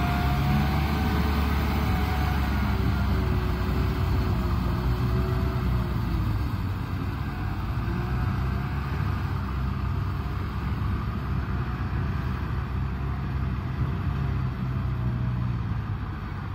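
Kubota M6040SU tractor's four-cylinder diesel engine running steadily under load in deep mud with its rotary tiller, with a fainter whine that wavers in pitch. The sound slowly grows quieter as the tractor pulls away.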